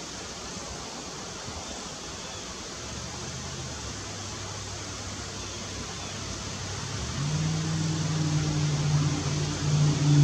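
Steady outdoor hiss, with the low hum of an engine coming in about three seconds in and growing steadily louder from about seven seconds, as if drawing closer.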